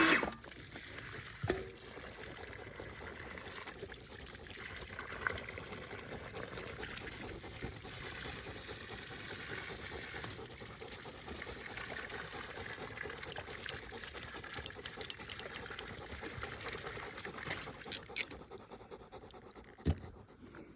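Pressurized water hissing and spraying steadily from an open line while a ball valve is pushed onto it under pressure, with a few sharp clicks of the fitting work near the end.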